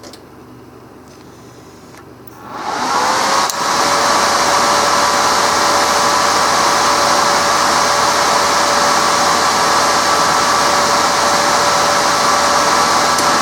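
Resanta 190K welding inverter powering up: its cooling fan spins up about two and a half seconds in, its hum rising and then levelling off, and runs steadily, with a click about a second later. The even fan sound is the sign that the inverter is now working stably after its shorted zener diodes were replaced.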